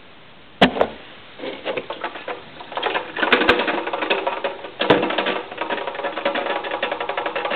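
Plastic coffee maker parts being handled: a sharp knock about half a second in, then a fast, uneven rattling clatter.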